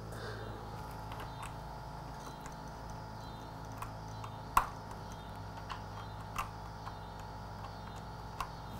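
Scattered small clicks and ticks as a motorcycle clutch cable and clutch lever are handled, with one sharper click about four and a half seconds in, over a steady low hum.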